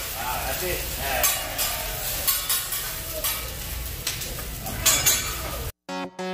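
Food sizzling on a teppanyaki flat-top griddle, with several sharp metal clicks of the chef's spatulas. It cuts off suddenly near the end and electronic music with plucked guitar starts.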